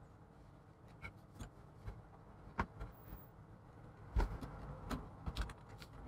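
Light clicks and taps of small plastic charger-case parts being handled and set down on a desk, scattered and irregular, with a firmer knock about four seconds in.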